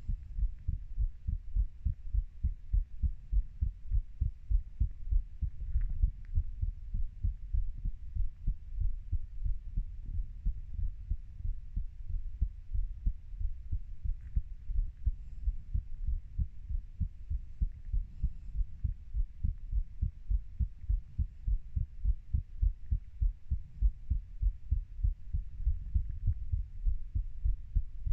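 A human heart beating, recorded close up: a steady, even rhythm of low, dull thuds.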